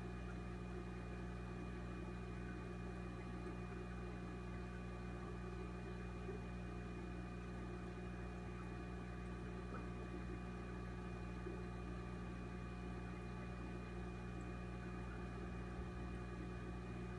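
Steady hum of aquarium equipment, made of several constant tones, with a faint bubbling from the air-stone bubble curtains.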